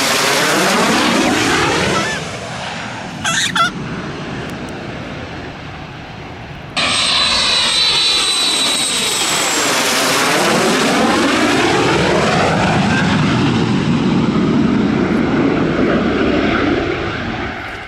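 Snowbirds CT-114 Tutor jets passing low overhead, their single turbojets giving a loud rushing roar with a high steady whine that sweeps as each one goes by. The noise jumps suddenly louder about seven seconds in as another jet approaches and passes.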